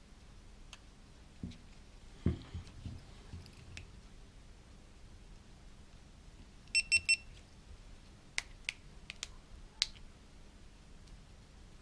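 GoPro Hero 4 Silver action camera giving four quick electronic beeps about seven seconds in. Around them are small handling knocks early on and a few sharp clicks afterwards.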